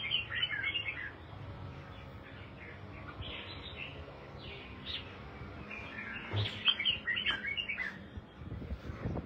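Caged red-whiskered bulbul singing in bursts of quick, chirping whistled phrases. The longest and loudest run comes about six to eight seconds in.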